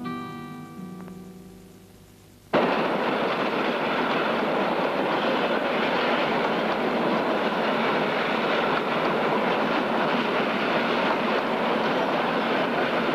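Acoustic guitar's last chord ringing out and fading; then, after a sudden cut about two and a half seconds in, the loud, steady noise of a train going by on the track.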